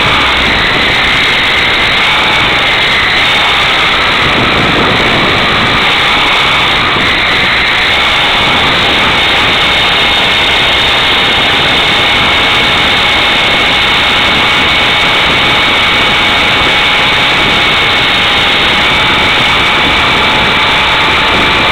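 Electric radio-controlled CH-53 model helicopter in flight, heard from a camera mounted underneath it: a steady high motor and gear whine over the rush of the rotors, wavering slightly in pitch in the first few seconds.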